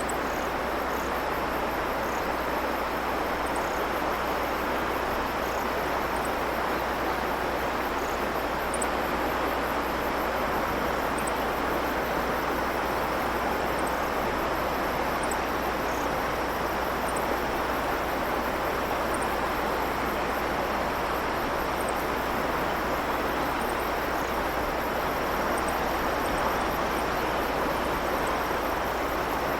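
Shallow stream babbling steadily over stones, with brief high chirps of small birds every second or two.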